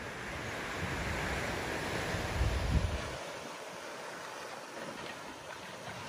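Wind buffeting the microphone with a gusty low rumble that stops about three seconds in, over a steady rushing hiss of surf on the shore.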